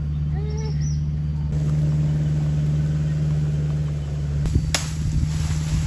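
A small engine running steadily with a low hum. A sharp knock comes near the end, followed by a rapid low pulsing.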